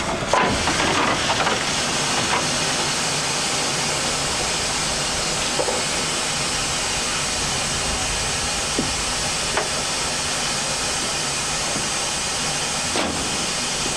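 Steam hissing steadily from ex-Southern Railway USA-class 0-6-0 tank locomotive No. 30072, with a few short knocks over it.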